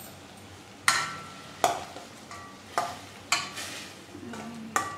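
A long steel spoon stirring and scraping around a stainless steel kadai of thick, cooked-down pineapple and jaggery, with about five sharp scrapes and clinks of metal on metal, roughly a second apart.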